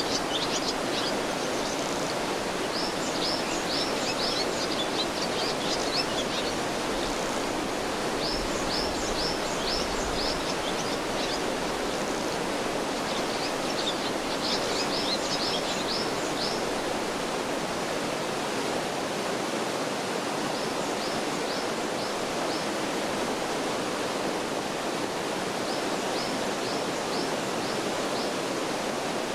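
A mountain stream flowing steadily, with a small songbird singing short runs of quick, high notes about six times.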